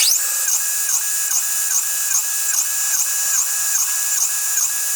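Metal lathe starting up suddenly and running with an even rhythmic pulsing about three times a second. The owner puts the pulsing down to an unbalanced workpiece on the spindle.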